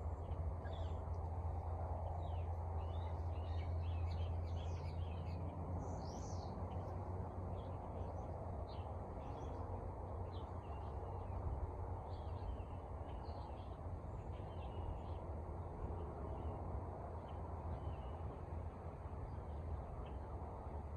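A 56-inch Hampton Bay Antigua ceiling fan coasting down after being switched off from high speed: a steady low whir of moving air and motor that eases a little over the course. Small birds chirp repeatedly in the background, mostly in the first half.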